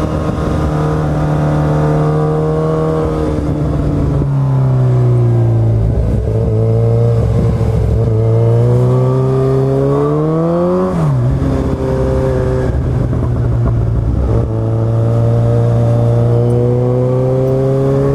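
Exhaust of a 2010 Kawasaki Z1000's inline-four, running through Black Widow race headers and Delkevic slip-on mufflers, on the move: the engine note is deep and toned down to much more manageable. The pitch drops about four seconds in, climbs steadily under acceleration, then falls sharply at an upshift about eleven seconds in and holds steady.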